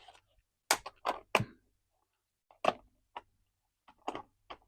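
Scattered sharp clicks and knocks of a plastic toy horse action figure being handled and posed on its display stand, some from its ratcheted leg joints, a quick cluster of three about a second in.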